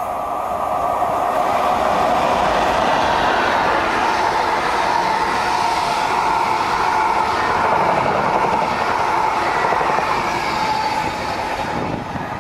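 An intercity express of Mark 3 coaches, hauled by a Class 90 electric locomotive with a Class 82 driving van trailer at the rear, passing through the station at speed. The steady rush of wheels on rail builds over the first couple of seconds and eases near the end as the train draws away.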